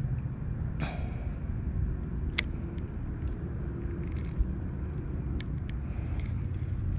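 Steady low outdoor rumble, with one sharp click about two and a half seconds in and a few faint ticks later.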